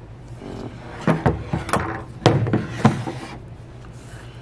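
Knocks and scraping of a Chrysler 727/904 automatic-transmission valve body being set down and shifted on a workbench, a handful of clunks between about one and three seconds in.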